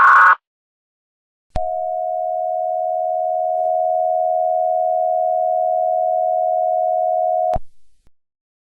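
Emergency Alert System alert audio: the tail of a digital header data burst ends right at the start, then after a brief gap a steady electronic attention tone sounds for about six seconds and cuts off abruptly.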